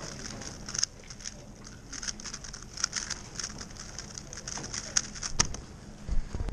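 A 3x3 speedcube (a WRM 2021) turned at speed: a fast, uneven run of light plastic clicks and clacks from the layers snapping round. Near the end comes a louder dull thump as the solve finishes on the table and timer.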